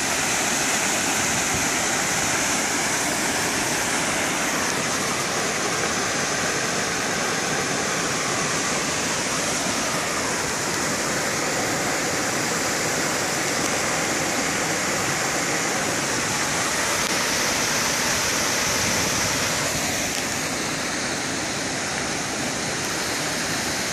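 Spray fountain jets splashing steadily into a pond, a constant rush of falling water. It turns a little softer about twenty seconds in.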